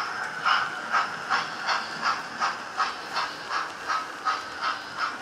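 Model steam locomotive chuffing at a steady beat of about three chuffs a second.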